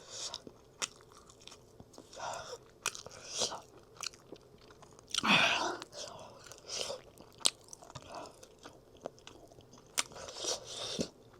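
A person chewing and biting food, with short wet mouth clicks and a few crunchy bites; the loudest burst of chewing comes about five seconds in.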